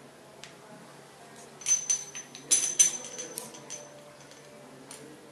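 Chrome thermostatic mixer parts clinking and knocking together as they are handled: a cluster of sharp metallic clicks with a brief ringing tone, from about a second and a half in to nearly four seconds, loudest near the middle. A few faint ticks come before and after.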